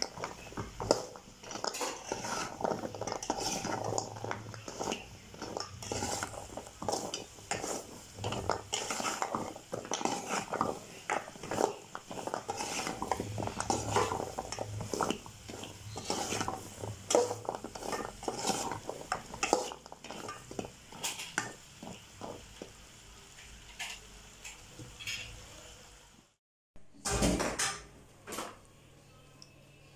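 A perforated metal slotted spoon scraping and clinking against an aluminium pot as fried dough sweets are tossed in sugar syrup, with irregular clinks that thin out after about twenty seconds. Near the end, after a brief dropout, there is one short, louder noise.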